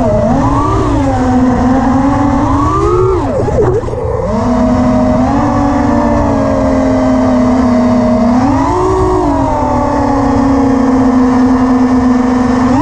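Brushless motors of a 5-inch FPV quadcopter (Armattan Oomph 2206 2300kv motors on HQ 5x4.3x3 props) whining, the pitch sweeping up and down with the throttle. About three seconds in the whine drops sharply and swoops back up, then holds steady, rising again briefly near nine seconds.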